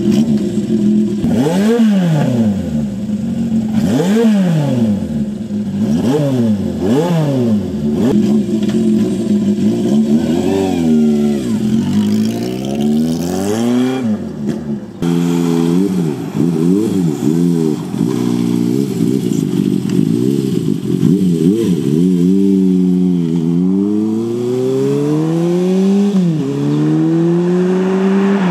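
Honda CB400Four's air-cooled inline-four through a short aftermarket exhaust, its revs climbing and dropping again and again. After a sudden change near the middle, the bike fitted with a Yoshimura post-regulation 94 dB short exhaust accelerates, its pitch rising in long sweeps that break off at each gear change.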